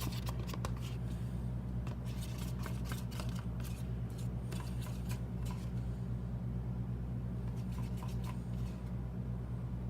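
Spoon stirring a thick white glue-and-water slime mixture in a cup, with irregular scraping and tapping clicks, over a steady low hum.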